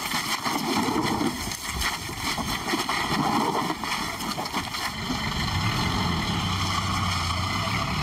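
A vehicle engine idling steadily, becoming clear about five seconds in.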